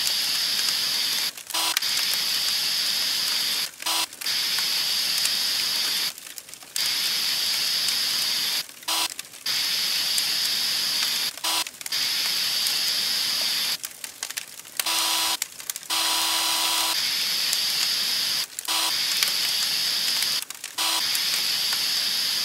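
Water hissing from a fire hose nozzle, a steady spray that cuts in and out in bursts of about two seconds with short breaks between.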